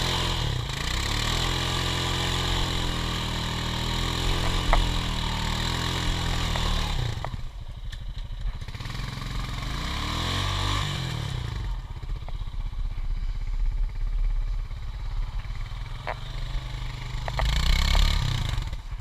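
ATV engine revving hard as the quad wallows in a deep mud hole, dropping to a lower idle about seven seconds in, then revving up briefly twice more: the machine is bogged down and the rider is trying to power out.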